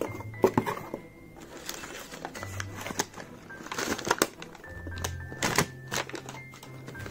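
Crumpled packing paper and a paper wrap crinkling and rustling as they are handled in a cardboard box, with many short sharp crackles, over background music.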